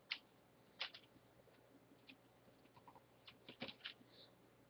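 Faint, scattered clicks and taps from a Blu-ray box set's packaging being handled and opened, with a quick cluster of clicks about three and a half seconds in.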